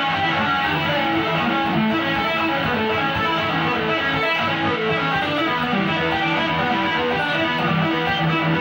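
Ibanez RG170R electric guitar being played: an unbroken stream of quick single notes at a steady level.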